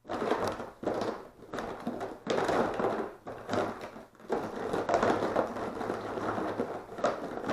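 Irregular rustling and crunching from materials being handled, with scattered light knocks; it starts abruptly.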